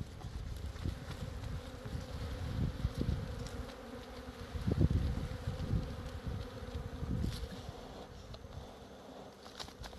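Many honeybees buzzing together at the hive, a steady droning hum. Uneven low rumbles run under it, strongest about five seconds in.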